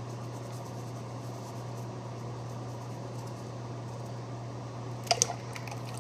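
Steady hum of a running fan, with two sharp knocks in quick succession about five seconds in.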